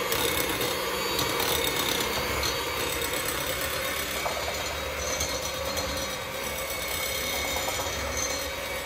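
Electric hand mixer running steadily, its beaters whisking egg yolks and sugar in a glass bowl.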